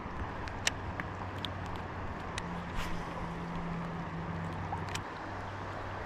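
Steady rush of river water with a low steady hum under it and a few sharp small clicks and taps scattered through.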